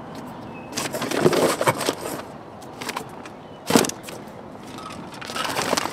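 Supplement packaging being handled on a cardboard box: a foil pouch crinkling in bursts, with one sharp knock a little past halfway as something is set down, and more rustling near the end.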